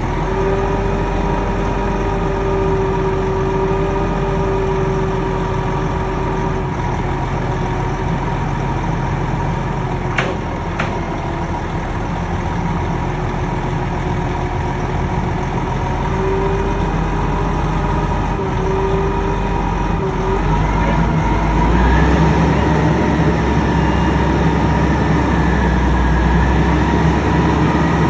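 A large engine on tree-removal machinery running steadily, like a truck or crane at idle. About three quarters of the way through, its low rumble gets louder and changes, as if the engine takes on load. Two short sharp clicks come near the middle.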